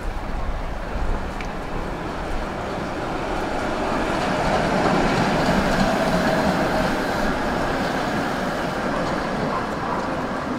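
Tram running along its rails: a steady rumble that grows louder about halfway through, with a faint whine in the middle.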